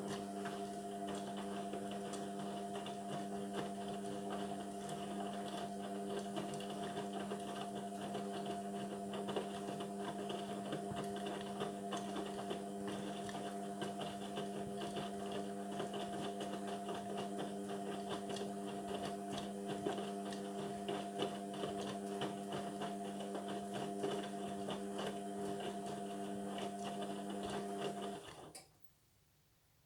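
Indesit washing machine running mid-cycle: a steady electric motor hum with crackling, cutting off abruptly near the end.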